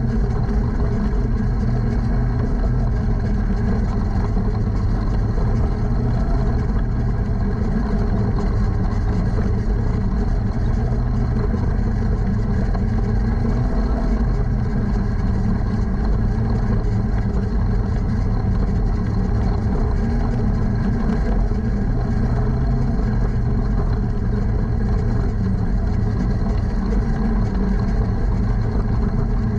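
Jr Sprint car's engine running steadily at low speed, heard from inside the open cockpit, with no revving up or down.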